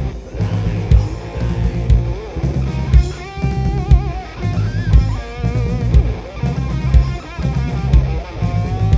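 Blues-rock band playing live: drum kit with a heavy beat about once a second, bass and electric guitars. From about three seconds in, a lead line bends and wavers in pitch over the band.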